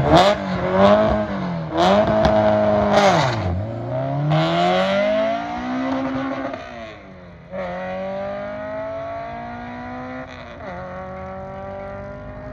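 Drag-racing car accelerating hard down the strip from the launch. Engine pitch climbs and then drops sharply at each gear shift, about four times, with a few sharp cracks in the first few seconds. The engine fades as the car pulls away.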